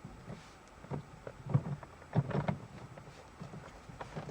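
Handling noises as a gunmetal shift knob and its stop nut are turned and tightened onto the gear lever threads: a few irregular knocks and scrapes, clustered around the middle.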